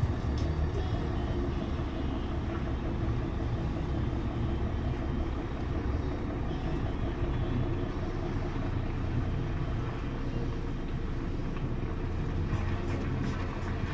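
Steady low rumble of idling heavy diesel trucks.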